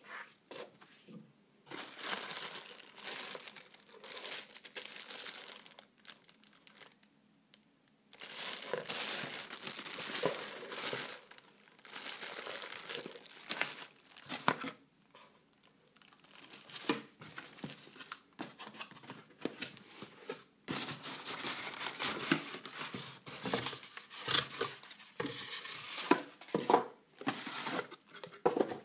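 Cardboard packaging and the plastic bag around a new laser printer being handled: crinkling and rustling in uneven bursts with sharp crackles, stopping for about two seconds around six seconds in.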